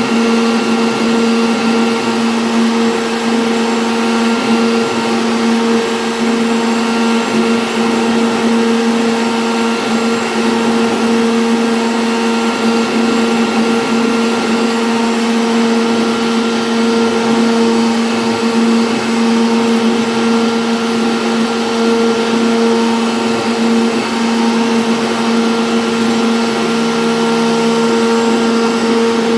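CNC wood router spindle running steadily while carving an MDF board, a constant even whine over a cutting hiss.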